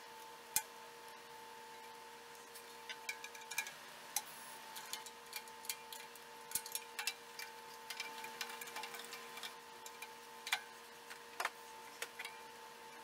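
Irregular light clicks and knocks of small plastic and metal parts as the drums of a mini desktop drum kit are handled and fitted onto their plastic stand, over a faint steady hum.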